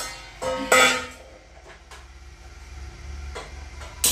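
Steel cookware clattering as a kadai is set on a gas stove, loudest about a second in. A sharp click near the end as the burner knob is turned.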